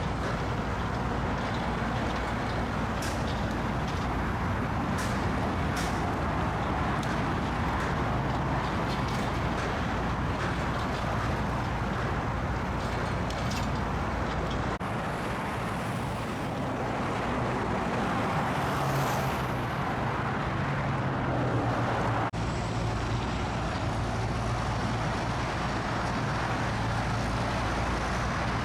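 Steady road traffic noise with passing vehicles and the low hum of engines. The sound changes abruptly twice, about halfway through and again a few seconds later.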